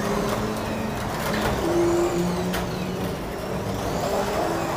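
Carrera Digital 1/24 scale slot cars racing, their small electric motors whining, with the pitch rising and falling as the cars speed up and brake around the track. A single sharp click comes about two and a half seconds in.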